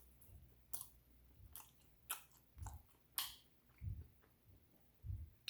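A person chewing a mouthful of beef meatballs and spaghetti close to the microphone: faint, irregular mouth clicks and soft smacks.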